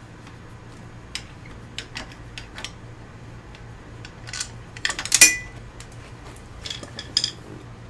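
Small metallic clicks and clinks of a screwdriver and a loose mounting screw as a turn-signal assembly is unscrewed, with a sharper clink and a brief metallic ring about five seconds in.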